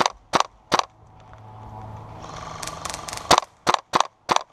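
WE G36K gas blowback airsoft rifle firing single shots on green gas: three sharp cracks in the first second, then after a pause a quicker string of about five.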